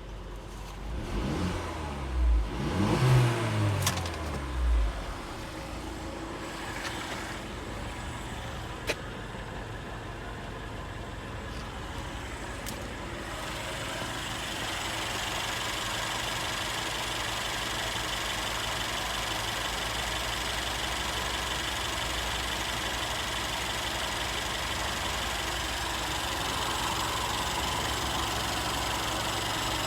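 An engine on test, revved with its pitch rising and falling in the first few seconds, then running steadily. It grows a little louder and brighter about halfway through, with a single sharp click near the 9-second mark.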